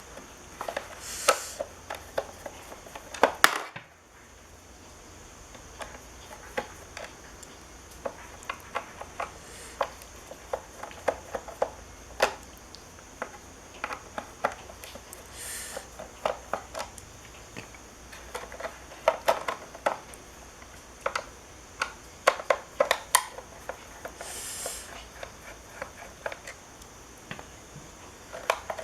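Irregular clicks, taps and light clatter of small tools and plastic and metal parts being handled, scattered throughout over a faint steady hiss.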